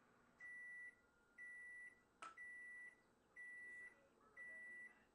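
Electronic beeper sounding five steady, high-pitched beeps, about half a second each and about one a second. A single sharp click falls between the second and third beep.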